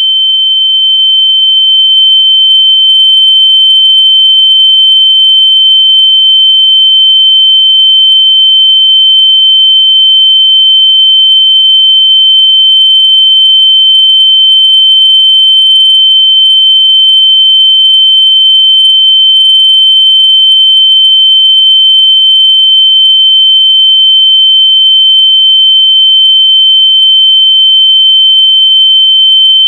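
A steady, very loud electronic sine tone of about 3 kHz, held at one unchanging pitch. It is a locator noise meant to be played through lost AirPods so they can be heard and found.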